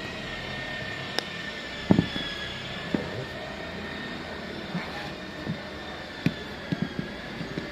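Scattered clicks and knocks of plastic parts being handled and fitted together as a kitchen food chopper's motor housing and cover are reassembled, the loudest knock about two seconds in. Under them runs a steady background hum with a faint high whine.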